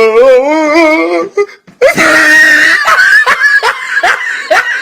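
Hysterical human laughter. It starts with a long, wavering, high-pitched laugh, breaks into a shrill scream-like laugh about two seconds in, then goes on as a quick string of short laughs, about three or four a second.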